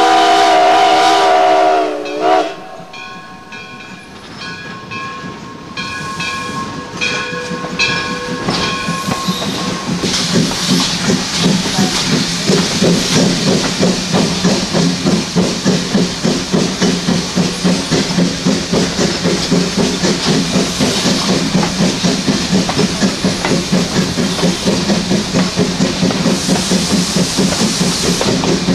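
Steam locomotive whistle sounding, sagging in pitch and cutting off about two seconds in. A bell then rings with repeated strokes and fades away, and the locomotive's exhaust chuffs build into a steady, rapid rhythm with steam hiss as the train runs on.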